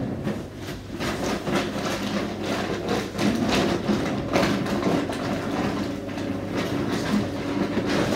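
Ipso WE165 commercial front-loading washer tumbling a load of bed linen: a steady motor hum with irregular knocks running through it.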